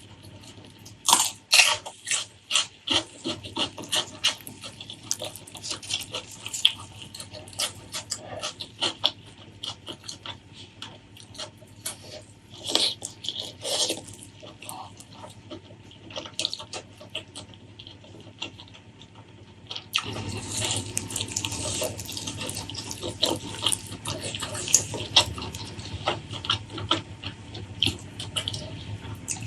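Close-miked eating sounds: wet chewing and lip-smacking with many sharp, wet clicks. About twenty seconds in it turns denser and louder.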